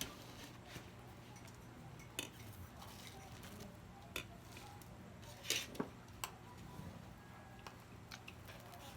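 Cutlery clinking against dishes during a meal: about five scattered clinks, the loudest a little past the middle, over a faint steady low hum.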